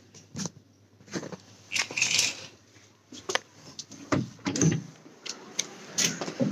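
Handling noise of a heavy fabric curtain being pulled aside, with a longer sliding swish about two seconds in, followed by scattered knocks and footsteps onto the balcony.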